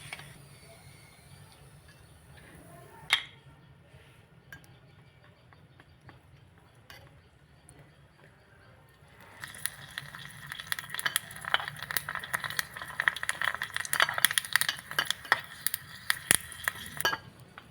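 A spoon stirring and clinking rapidly against a bowl for about eight seconds, starting about nine seconds in. Before that it is mostly quiet, with a single sharp clink about three seconds in.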